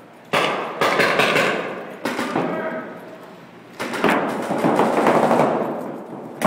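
Paintball markers firing in several rapid bursts, the pops echoing in a large indoor hall.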